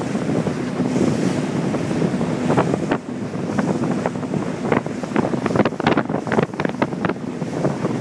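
Wind buffeting the microphone over the rush of choppy water from a boat under way, with a quick run of sharp splashes and slaps of water against the hull in the second half.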